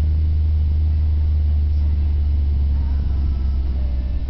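Deep, steady exhaust rumble of a 2005 Dodge Neon SXT's 2.0 SOHC four-cylinder through a Magnaflow cat-back exhaust, heard inside the cabin while driving. The level eases slightly near the end.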